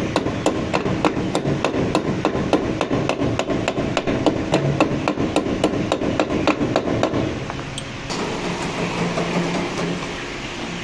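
Rapid, evenly spaced knocking like hammering, about four strokes a second, which stops a little past seven seconds in. It gives way to a steadier noise.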